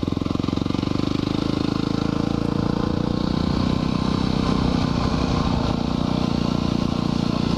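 2010 Yamaha WR250R's single-cylinder four-stroke engine running steadily while the dual-sport bike cruises under way.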